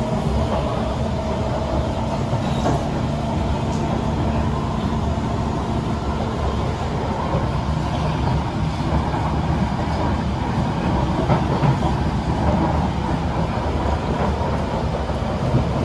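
SMRT Kawasaki C151 metro train running along the line, heard from inside the carriage: a steady rumble of wheels on rail and running gear. A low steady hum stops about six seconds in.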